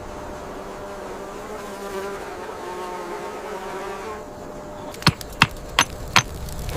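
A buzzing insect, wavering in pitch for about four seconds and then fading. Four sharp knocks follow in quick succession near the end.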